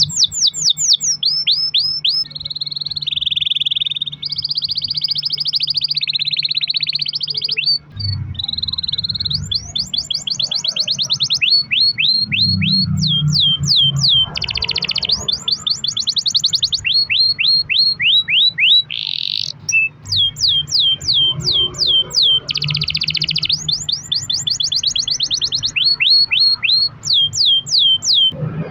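Domestic canary singing a long unbroken song ('rol panjang'). Runs of quick repeated notes that each fall sharply in pitch alternate with buzzy rolling trills.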